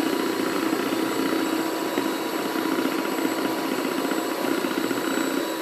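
Electric mixer running steadily, whipping egg whites into a stiff, fluffy foam.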